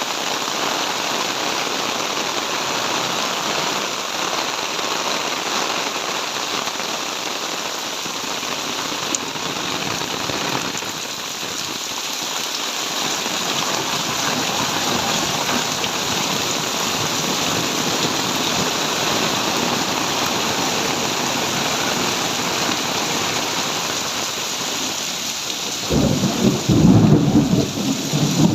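Heavy tropical rain pouring steadily. Near the end a loud, low rumble of thunder breaks in over the rain.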